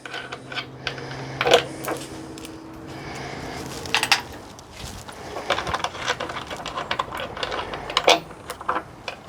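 Metal parts clinking and knocking now and then as an adapter cover is handled and offered up to an electric motor, with a low steady hum under the first part that stops about two thirds of the way through.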